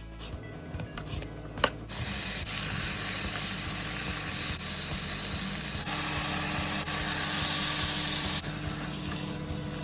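Stir-fry sizzling in a hot pan. The hiss starts up loudly about two seconds in, just after a single sharp click, and eases off near the end.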